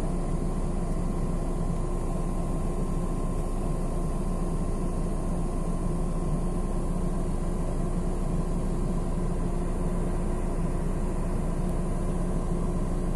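A motor running close by with a steady, unchanging hum.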